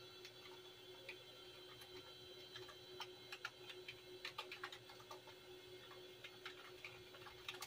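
Faint, irregular clicks of computer keyboard keys being typed on, in small runs, over a steady faint hum.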